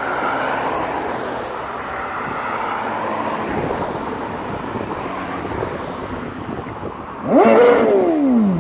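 Motorcycle engine running in the background, then revved once near the end: the pitch jumps up sharply and falls slowly away as the revs drop.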